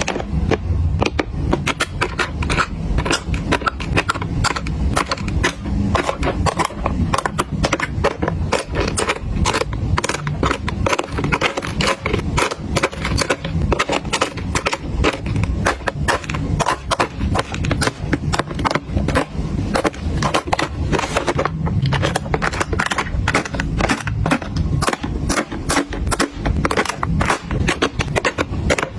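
Makeup items clattering as they are handled: a continuous stream of rapid clicks and taps of small hard objects knocking together.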